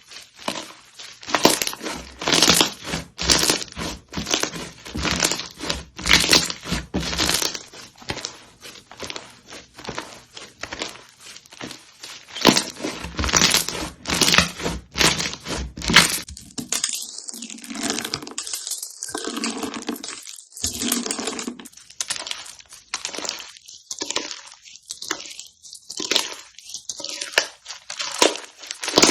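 Slime being squeezed and pressed by hand: a dense run of crunchy crackling, then from about the middle on a slower series of separate squishy pops with short gaps between them.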